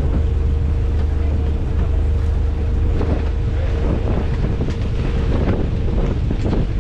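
Tour boat's engine running steadily under way, with strong wind buffeting the microphone and choppy water splashing now and then.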